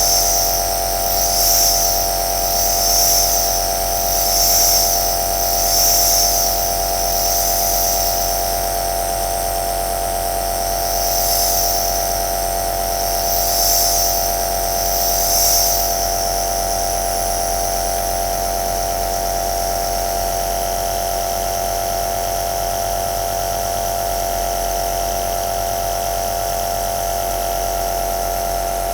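Compressor nebulizer running: a steady motor hum with a hiss of mist on top. The hiss swells and fades every second or two for the first half, then holds steady.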